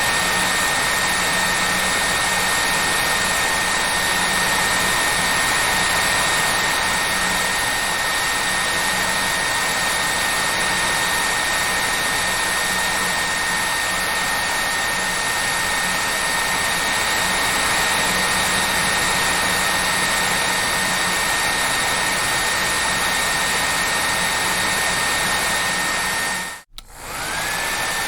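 Hair dryer blowing steadily, a rushing air noise with a high motor whine over it. Near the end it cuts out for a moment and comes back, the whine rising back up to pitch.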